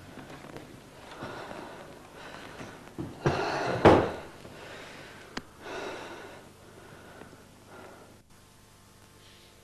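A person breathing heavily, with gasping breaths; the strongest comes about three to four seconds in and the breaths fade out near the end.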